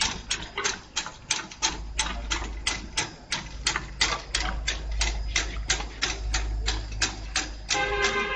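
UV putty filling and coating roller machine running, with regular sharp clicks about three to four a second over a low mechanical hum.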